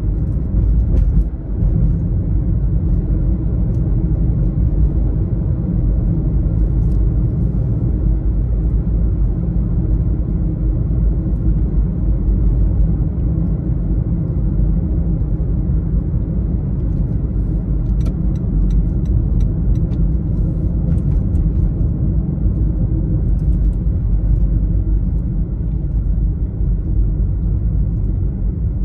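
Car driving, with a steady low rumble of road and engine noise. A few faint ticks come about two-thirds of the way through.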